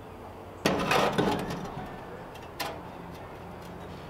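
Fire bricks scraping and knocking together as they are fitted in place. There is a burst of gritty scraping starting well under a second in and dying away within about a second, then one light knock a couple of seconds in.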